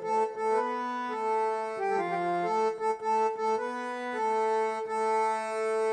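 A reed-toned keyboard instrument plays a melody of held notes over a steady sustained lower note, with no singing.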